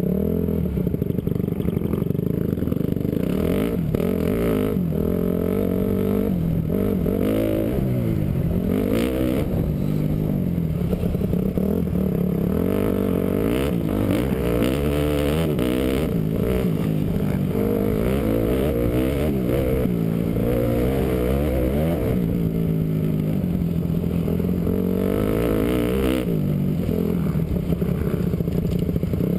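Honda CRF450 motocross bike's single-cylinder four-stroke engine heard from the rider's helmet, its pitch rising and falling over and over as the throttle is opened and shut along the track.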